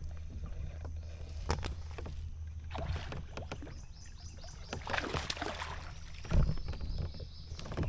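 Water moving around a fishing kayak under a steady low rumble, with scattered knocks. There is a splash about five seconds in as a fish leaps at the surface, then a loud low thump just after.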